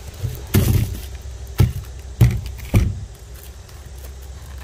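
Firework packages being handled: a brief rustle, then three sharp knocks about half a second apart as the packs are moved and set down, over a steady low rumble.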